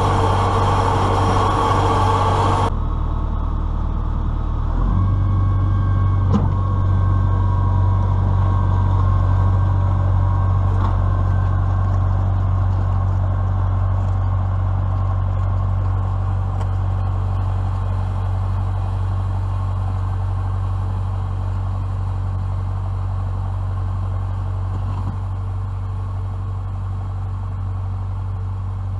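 Case IH MX100C tractor's diesel engine running steadily with a low, even hum. About three seconds in, a brighter hiss over it stops abruptly.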